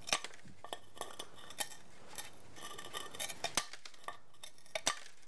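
Tile nippers biting small strips off the edge of a ceramic wall tile, which snap off between wet-saw slits in a series of sharp, crisp clicks at irregular intervals.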